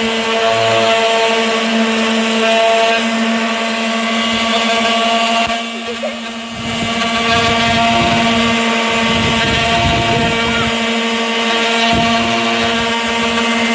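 Handheld electric sander running at a steady pitch, with a brief dip about six seconds in and some rougher grinding in the middle. It switches off abruptly at the end.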